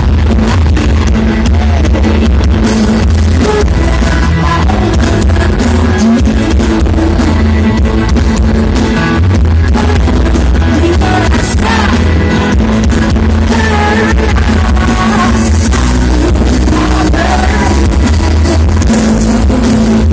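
Loud music with a heavy, steady bass and a singing voice, played through a large sound system.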